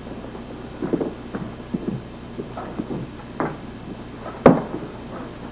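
A handful of short, irregular knocks and light thumps in a room, with one sharper, louder knock about four and a half seconds in.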